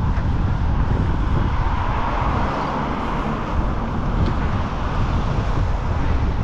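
Gale-force wind buffeting the microphone with a heavy rumble, under a broad rushing hiss that swells about two to four seconds in.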